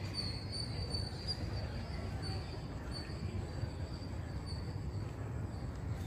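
Outdoor ambience in a park: a steady low rumble, with a faint high-pitched chirping that comes and goes.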